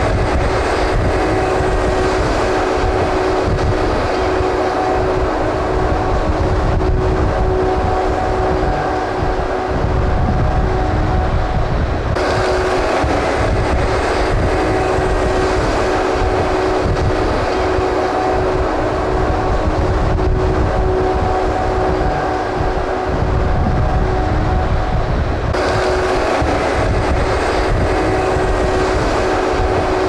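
Steady, loud machinery noise with a constant hum over a low rumble, from a running engine or motors held at one speed.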